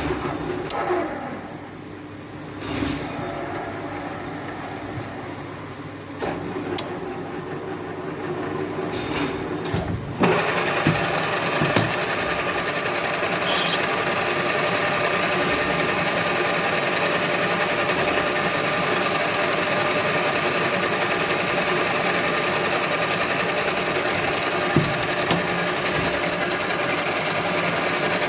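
Capstan lathe running while machining a brass cap: a steady mechanical hum with several whining tones and scattered clicks and knocks. It gets suddenly louder and denser about ten seconds in, then stays steady.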